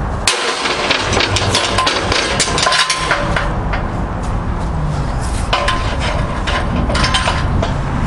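Repeated clanks and scraping of a Halligan bar prying and striking against a Master padlock and its steel hasp, in two flurries with a lull around the middle. A steady low engine rumble runs beneath.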